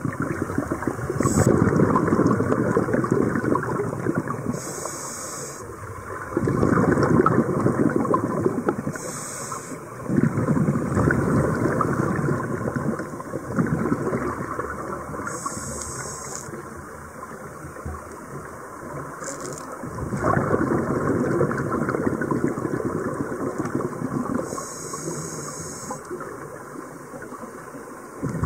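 Scuba diver breathing through a regulator underwater: about six short hissing inhalations, each followed by several seconds of bubbling exhaust bubbles.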